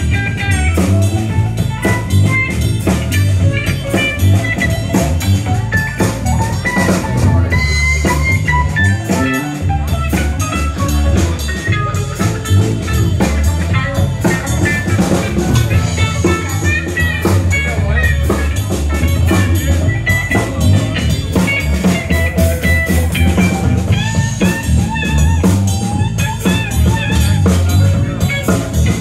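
Live blues band playing an instrumental passage with no singing: electric guitar lines over bass guitar and a drum kit.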